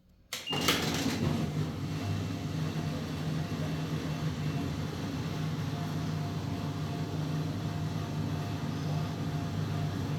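LG washing machine running in its test mode: the machine starts abruptly with a short high tone and a click about half a second in, then runs with a steady low hum.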